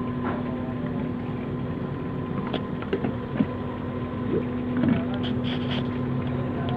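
A steady motor hum, with a few light clinks about halfway through and again near the end.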